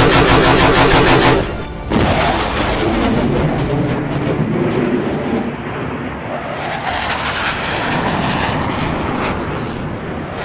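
Battle sound effects over background music: a burst of rapid machine-gun fire for about the first second and a half, then the steady rushing noise of a jet aircraft engine for the rest.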